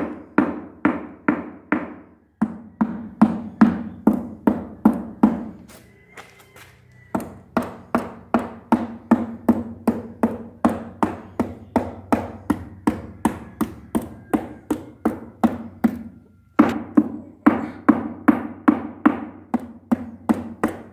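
Hammer striking the hardened concrete edge of a cast kitchen-cabinet form in quick, even taps, about three a second, with two short pauses.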